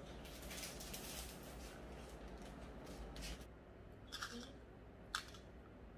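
Faint rustling and light clicking of small metal fishing-rig parts, steel beads, straight sleeves and pipe swivels, being handled and threaded onto thick fishing line. A few crisp ticks come late, one sharper than the rest about five seconds in.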